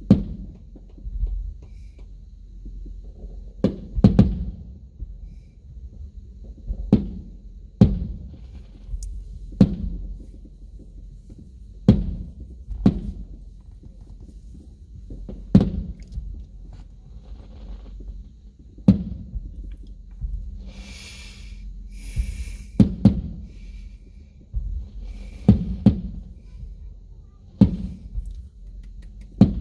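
Aerial firework shells bursting, a series of sharp booms about every one to two seconds, heard muffled from inside a car over the steady hum of its air conditioning. About twenty seconds in, a brief hissing crackle joins the booms.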